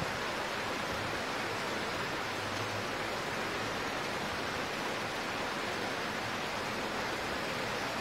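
Heavy rain falling, a steady even hiss.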